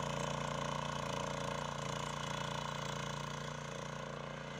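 Power weeder (walk-behind rotary tiller) engine running steadily under load as its tines churn through soil and grass, growing slightly fainter as the machine moves away.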